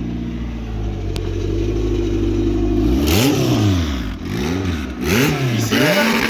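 Car engine idling steadily, then revved up and back down about four times in quick succession from about three seconds in.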